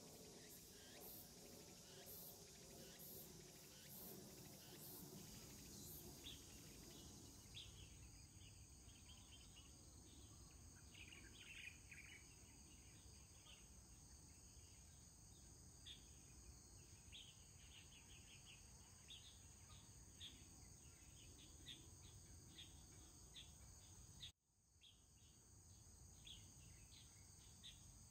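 Faint outdoor ambience of insects: a steady high drone with many short chirps scattered over it. The sound drops out briefly a few seconds before the end.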